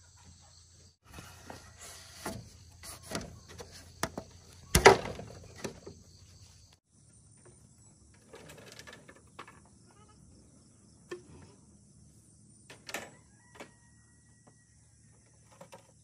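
Hollow bamboo poles knocking and clattering as they are handled and set down, in an irregular run of knocks with one louder strike near the middle. Insects chirr steadily in the background.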